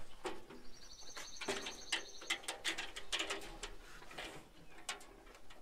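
Calves and a dog eating from a feed pan: faint clicks, licks and scuffs of muzzles in the pan, with a bird giving one rapid trill of high notes about a second and a half in.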